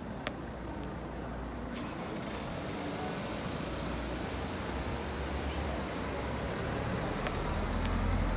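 Street traffic noise: road vehicles running past, with a low engine rumble growing louder near the end. A few short clicks over the top.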